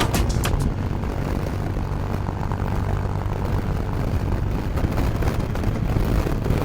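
Motorcycle running on the road with heavy wind rush on the onboard camera microphone, a steady low rumble.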